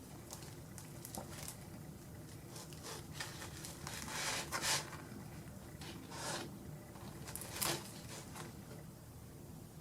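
A few short rustles and scrapes of things being handled, four brief bursts over a faint room background.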